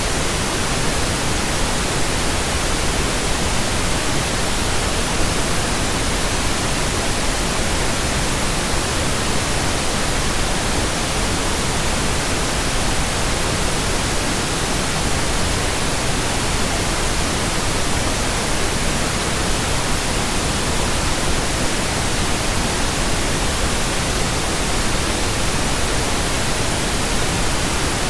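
Steady synthesized pink noise: an even, unchanging hiss spread across all pitches.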